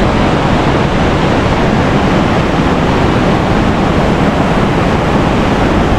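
Loud, steady rush of the Río Blanco waterfall, a drop of over 50 metres, its water crashing without a break.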